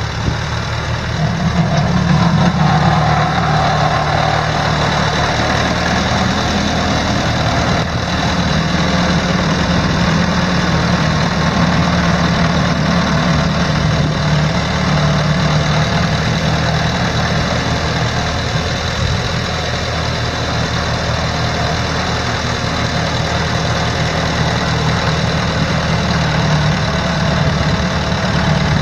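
1962 Allis-Chalmers D15 Series II tractor's four-cylinder gas engine running at a steady idle, getting a little louder about a second and a half in.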